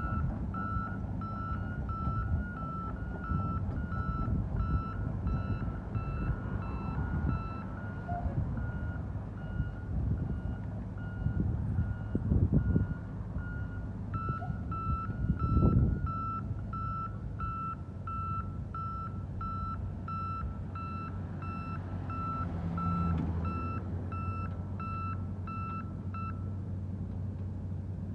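Hydrovac truck's reversing alarm beeping about once a second over its running diesel engine, with a few louder engine surges in the first half. The beeps grow louder about halfway through and stop shortly before the end.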